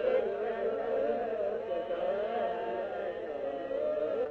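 Many voices chanting prayers together in a sustained, wavering chant, as in Ethiopian Orthodox liturgical prayer.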